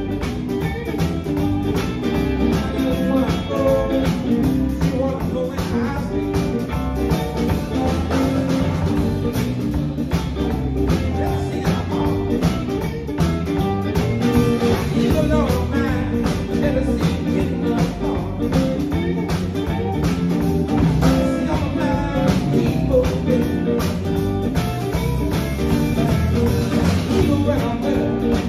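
Live band playing electric guitars and drums, with a steady beat.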